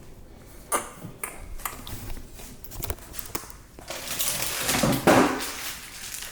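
Kitchen items being handled: scattered clicks and knocks, then a louder rustle lasting about a second and a half, starting about four seconds in.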